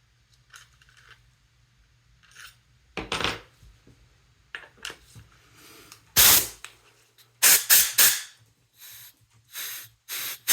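Scubapro Air 2 regulator on a pressurised tank letting out short bursts of air, each about a third of a second: one, a louder one, three in quick succession, then a few more. These are tests of the freshly adjusted orifice for leaking or free flow. Small metal clicks of handling come before them.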